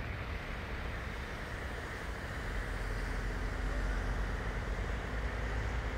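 Steady low rumble of distant city road traffic, with no distinct events, growing a little louder about halfway through.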